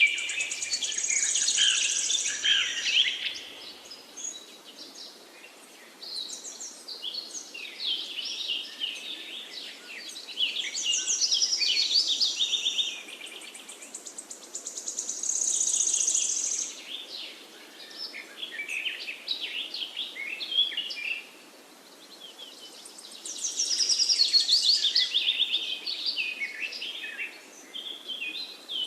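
Several songbirds singing and chirping together, in busy spells of a few seconds with short lulls between.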